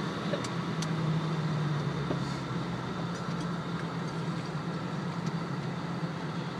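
A Toyota four-wheel drive's engine running steadily at low speed, heard from inside the cabin as a low, even hum. A few faint clicks come in the first second.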